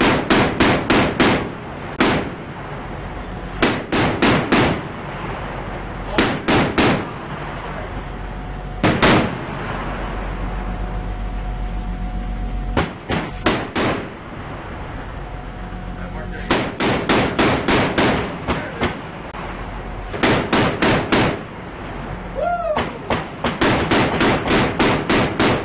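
Mk-38 25 mm chain gun (M242 Bushmaster) firing about ten short bursts of distinct shots, several rounds a second, with pauses of one to a few seconds between bursts, over a steady low hum.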